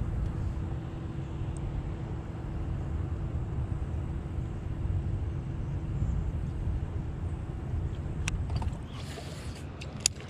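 Boat's bow-mounted electric trolling motor running with a steady low hum and a thin whine, cutting off about eight seconds in. A few sharp clicks follow near the end.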